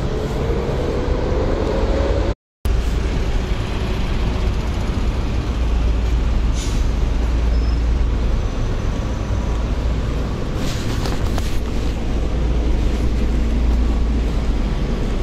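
Road traffic by an elevated highway: a vehicle's engine rising in pitch as it pulls away over a steady low rumble, with brief hisses about seven and eleven seconds in. The sound cuts out completely for a moment about two and a half seconds in.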